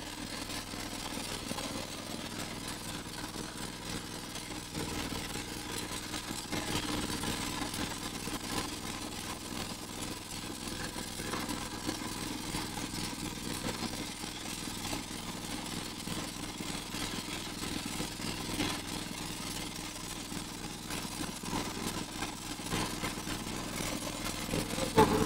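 Motorized outrigger boat's engine running steadily while under way. A brief louder knock comes near the end.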